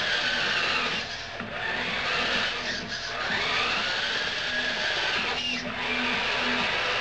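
1/10-scale 6x6 RC truck's Novak Goat brushless crawler motor and gear drivetrain whining, the pitch rising and falling with the throttle. It eases briefly about one and a half, three and five and a half seconds in.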